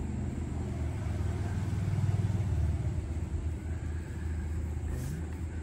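A steady low rumble, swelling a little about two seconds in, with a brief click near the end.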